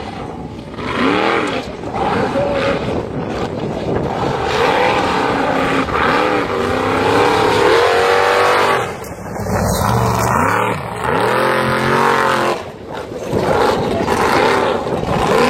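Competition car engine at full throttle, revs rising and falling again and again, with a long climb in pitch around the middle.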